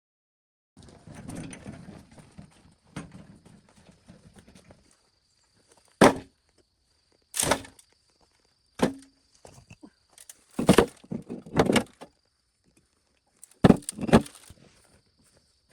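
A few seconds of rustling and scraping, then about seven sharp, irregularly spaced knocks, like blows struck on wood during building work; the loudest come about six seconds in and around eleven seconds in.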